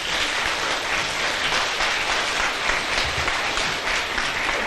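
A school assembly audience applauding: many hands clapping in a dense, steady patter that starts at once and holds at an even level.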